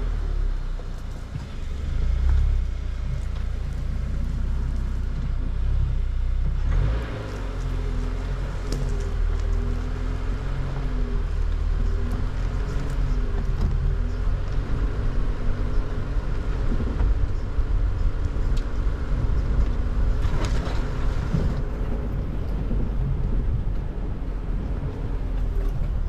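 Car driving, heard through an action camera mounted on the car: a steady low road rumble, joined about seven seconds in by a humming tone that wavers in pitch.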